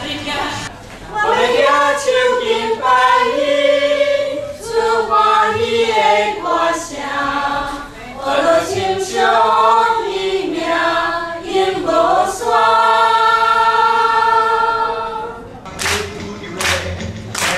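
A small amateur choir of men and women singing a cappella, ending on a long held chord. A few sharp percussive hits cut in near the end.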